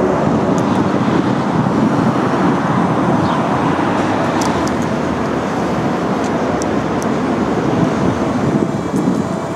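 Steady road traffic noise from passing cars, a continuous rush with a few faint high ticks.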